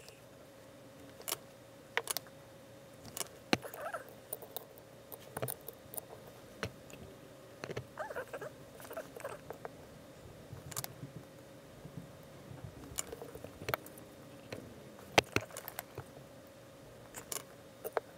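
Scattered small clicks, taps and scrapes as hands and tools handle a tiny camera circuit board in a spring-clamped metal PCB holder, with one sharper click about three-quarters of the way through. A faint steady hum runs underneath.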